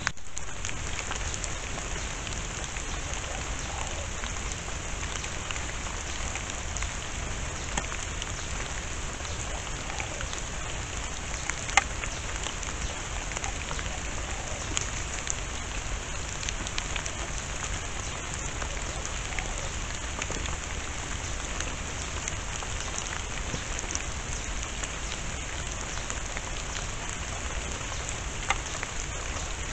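Steady rain pattering on forest foliage: an even hiss with scattered light ticks of drops, and one sharper tick about twelve seconds in.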